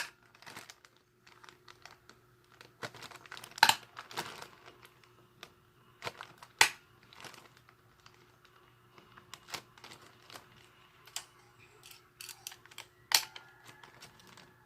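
Thin plastic bag crinkling as it is handled and squeezed, with several sharp clicks a few seconds apart.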